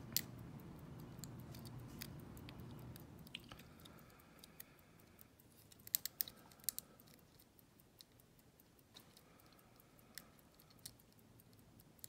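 Faint clicks and scrapes of a steel hook pick working the pin stack of a small pin-tumbler cylinder lock held under tension, with a quick cluster of clicks about six seconds in. A low hum underneath fades out after about three seconds.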